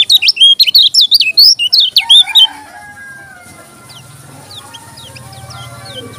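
Lemon-bellied white-eye (kecial kuning) singing a loud, fast burst of quick chirping notes that lasts about two and a half seconds. After that comes a fainter string of short falling chirps, about two a second.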